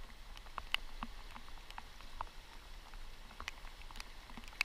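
Light raindrops ticking irregularly, several a second, on the camera's waterproof housing, over the faint steady rush of river rapids.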